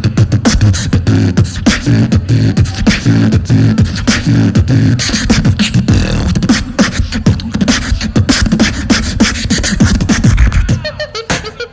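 Live beatboxing through a stage microphone: fast clicks and snare sounds over a pulsing deep bass line in the first half, then mostly rapid percussive clicks. A heavy bass hit comes near the end, after which the sound drops away.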